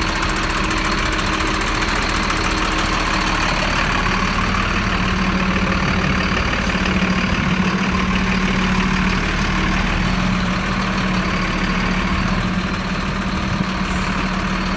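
Flatbed recovery truck's engine idling steadily, with a constant low hum that swells a little in the middle.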